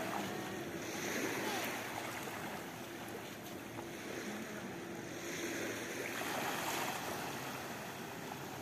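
Surf washing onto a sandy beach, swelling twice, about a second in and again around six seconds in.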